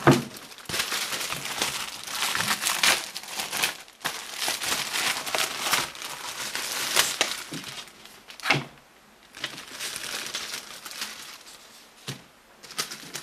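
Plastic wrapping and paper crinkling and rustling as packing material and printed sheets are unwrapped and handled, with a few short knocks. It goes quieter for a few seconds before the end.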